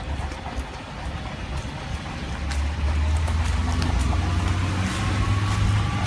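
A motor vehicle's engine running on the street, getting louder about three seconds in and slowly rising in pitch, with scattered faint clicks.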